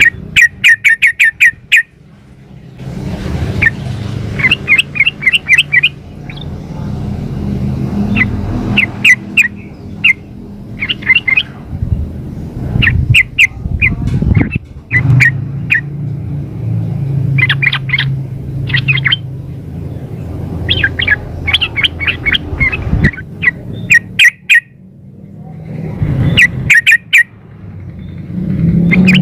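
Yellow-vented bulbul calling in quick runs of short chirps, repeated again and again with short gaps, over a steady low rumble. The call is offered as a female calling to a male.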